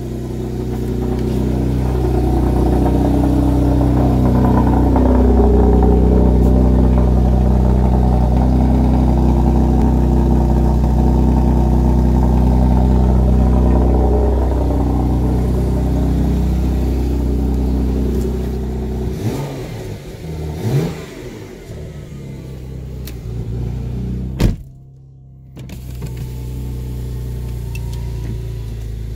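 2016 Porsche Macan S's 3.0-litre twin-turbo V6 idling through its exhaust, loud and steady for the first twenty seconds or so, then quieter. About twenty seconds in the pitch rises and falls briefly. Near the end there is a sharp click and about a second of silence before the idle continues.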